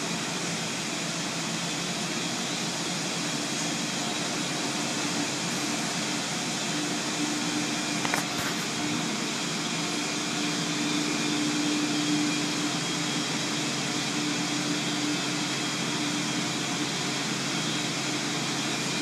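Automatic tunnel car wash running: a steady rush of water spray and swinging cloth curtain brushes with machinery noise. A low steady hum comes in about seven seconds in, and there is a single knock about eight seconds in.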